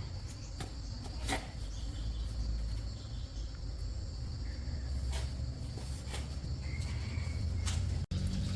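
A steady low rumble with a continuous high hum, broken by a few short light clicks or knocks.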